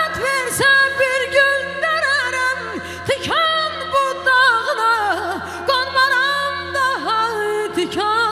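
A woman sings a mugham-style vocal line live into a microphone, her pitch swooping and trembling through ornamented runs in phrases with short breaks, over a steady held low instrumental accompaniment.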